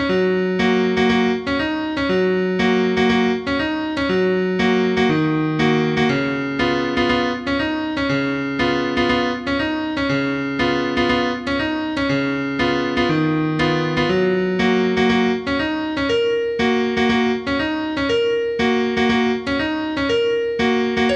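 Background piano music: a calm melody of evenly paced notes over slowly changing held lower notes.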